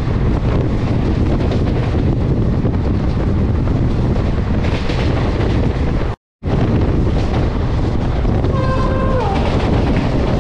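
Rumble of a passenger train running at speed, with wind buffeting the microphone. The sound breaks off for a moment about six seconds in. Near the end a faint horn sounds for under a second and drops in pitch as it ends.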